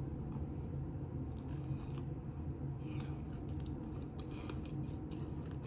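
A person chewing food, with soft, scattered mouth clicks over a steady low hum.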